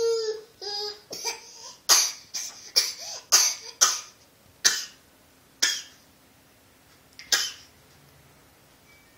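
A young child's put-on, fake coughs: a high-pitched vocal sound at the start, then about nine short coughs, coming quickly at first and spacing out towards the end.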